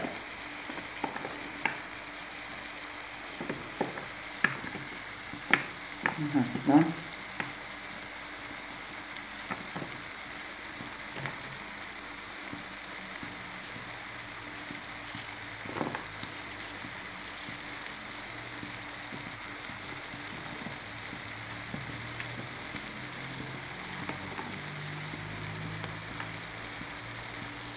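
Onions, peppers and tomato frying in oil with spices: a steady sizzle. A few sharp knife clicks sound in the first seven seconds and once more midway, as kabocha squash is sliced against a plastic plate.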